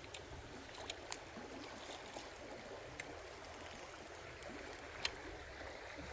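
Faint steady flow of creek water, with a few small clicks and one sharper click about five seconds in.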